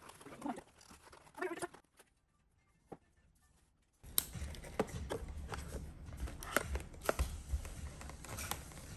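Paperboard takeout box being handled and its stubborn sealed flap worked open with a small pocketknife blade: scraping and clicking of the blade against the cardboard, with a short quiet gap near the middle.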